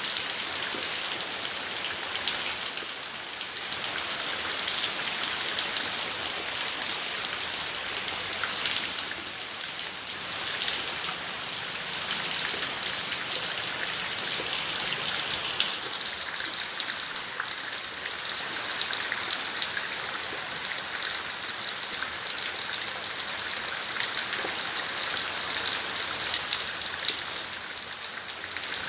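Steady rain falling, with many individual drops ticking on surfaces.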